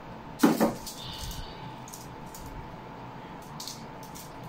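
Close-miked eating sounds from people eating with their hands: small wet mouth clicks and smacks while chewing. About half a second in comes a louder short double knock, followed by a brief high ringing. A faint steady hum runs underneath.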